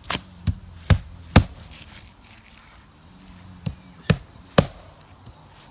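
Hammer blows on a roof: four strikes about half a second apart, a pause of about two seconds, then three more.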